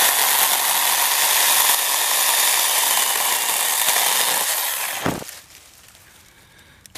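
EnBrilite battery-powered mini chainsaw running and cutting through a small sapling trunk, a steady saw noise for about four and a half seconds that dies away about five seconds in, with a short thump as it stops.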